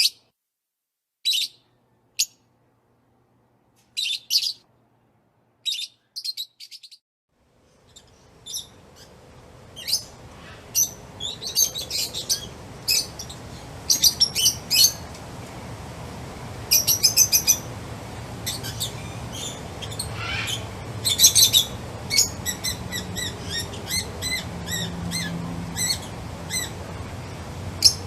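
Songbirds chirping: short bursts of high chirps with silence between for the first several seconds, then a steady outdoor background fades in and many birds chirp more densely, ending in quick repeated chirp runs.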